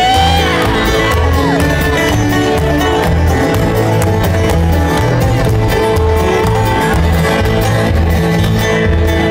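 Live bluegrass string band playing an up-tempo tune: banjo, acoustic guitars, mandolin and fiddle over an upright bass walking between two notes on a steady beat.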